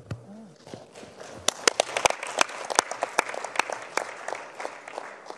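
Audience applauding with many sharp hand claps, starting to build about a second in.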